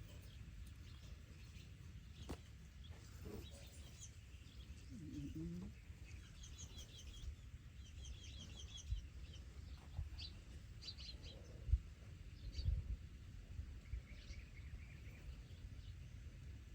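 Faint chirping of small birds in short, quick trills, over a low rumble with a few soft knocks.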